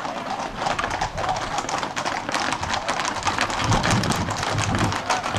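Many Camargue horses' hooves clattering on asphalt in a dense, uneven patter of strikes as the mounted group trots and canters closer. A low rumble builds and the clatter grows louder in the second half.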